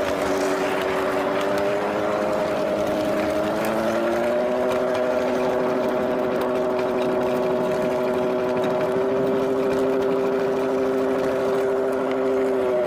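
Small engine of a homemade mini rail cart running steadily as the cart rolls along the track. Its pitch rises about four seconds in, then holds.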